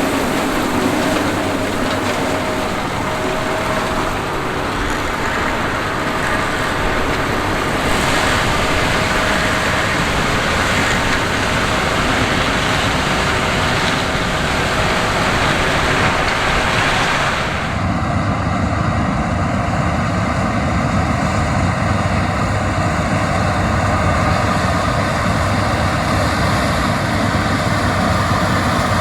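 John Deere X9 1000 combine's 13.6-litre diesel engine running under load while it harvests corn, with a dense mechanical hiss from the machine. About two-thirds of the way through the sound changes abruptly to a steadier, lower engine drone with much less hiss.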